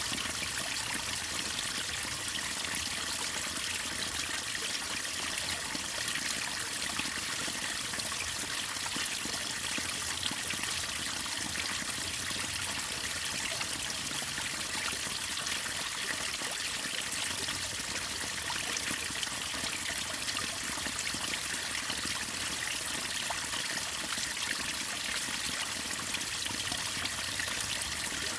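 Waterfall and river water running steadily: an even, unbroken splashing hiss with most of its sound in the high range.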